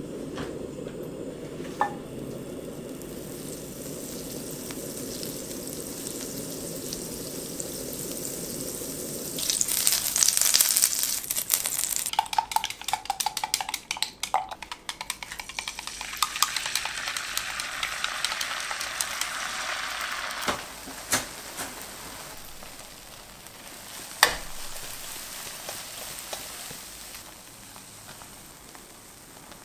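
A gas burner's flame gives a steady low rush over a hot nonstick frying pan. Butter then drops in and sizzles loudly, and beaten egg and milk are poured in and fry with a hiss. A few sharp knocks of utensils on the pan follow, the loudest about two-thirds of the way in, then a quieter sizzle.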